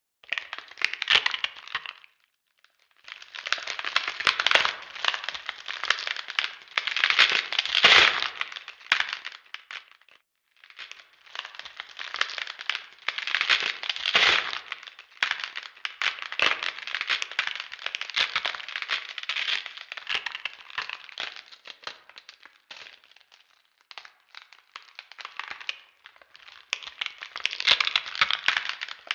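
Bone-crunching spine sound effect: dense runs of cracking, crackling and snapping in several long bursts with short breaks, the loudest cracks about eight seconds in.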